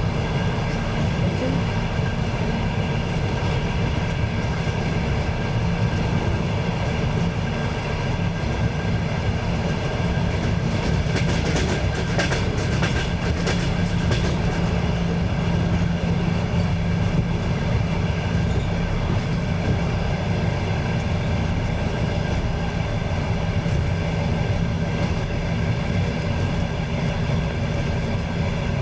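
Train in motion heard from on board: a steady rumble of wheels running on the rails with a constant hum. About eleven seconds in comes a few seconds of clattering as the wheels cross rail joints or points.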